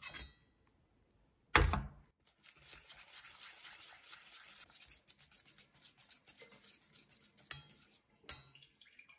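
Wire whisk stirring flour into an egg, sugar and milk custard mixture in a stainless steel mixing bowl: a fast, steady scraping with a couple of light clicks of the whisk against the bowl near the end. About a second and a half in, a single loud knock.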